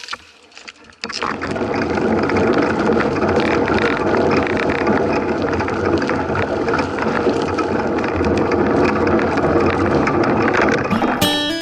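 Mountain bike riding noise: a steady rushing sound full of small rattles and clicks, starting about a second in.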